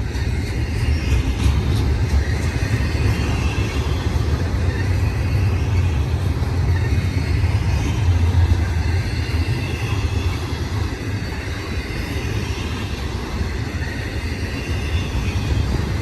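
BNSF intermodal Z train of containers and trailers rolling past on the main track: a steady low rumble of the cars.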